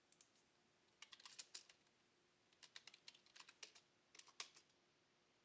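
Faint computer keyboard typing: three short flurries of keystrokes.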